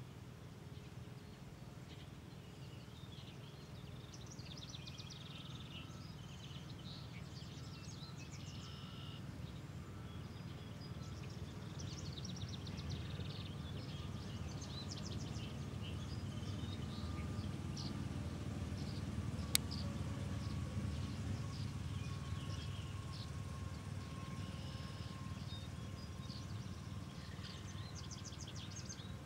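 Outdoor ambience: small birds chirping and trilling over a steady low rumble that swells midway, with one sharp click about twenty seconds in.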